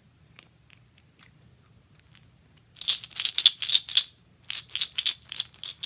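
Plastic prescription pill bottle with a child-resistant cap being shaken, the pills inside rattling in two quick bouts starting about three seconds in, after a few faint clicks of handling the cap.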